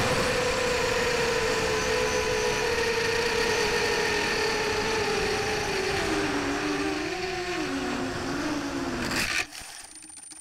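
Electric motor and propeller of a small RC aircraft whining, heard from its onboard camera with rushing air noise; the pitch sags slowly, then wobbles up and down. About nine seconds in a sharp knock marks the crash into the grass and the motor stops, leaving only a faint high steady electronic tone.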